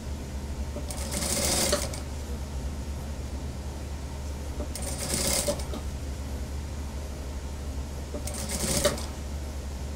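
Industrial sewing machine stitching in three short runs of about a second each, with a steady low hum between them.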